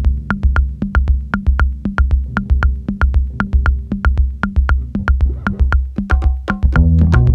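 Electronic background music with a steady drum-machine beat; a fuller bass line comes in near the end.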